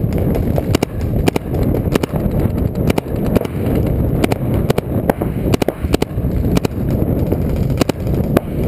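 Irregular sharp pops of paintball fire, about two or three a second, over a steady rumble of wind on the microphone.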